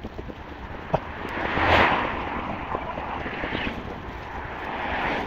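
Road traffic passing: a vehicle's rush swells up and fades about two seconds in, over steady road noise.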